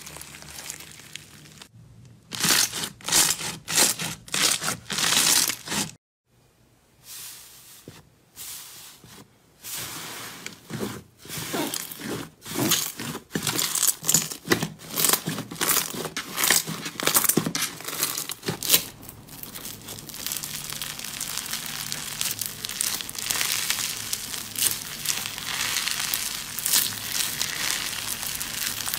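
Slime being stretched, squeezed and pulled apart by hand. First comes quick crackling from a beaded clear slime, then a break about six seconds in. A run of separate squishy presses follows, and from about two-thirds of the way through there is a steady crackling tear as a fluffy slime is pulled apart.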